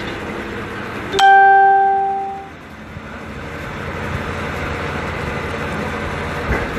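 Steady running noise of the water well drilling rig's machinery. About a second in comes one loud bell-like ring that dies away over about a second.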